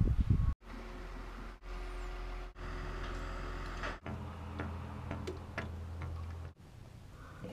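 Dark engine oil pouring from a drain pipe into a container: scattered faint ticks over a low steady rumble, broken off abruptly several times.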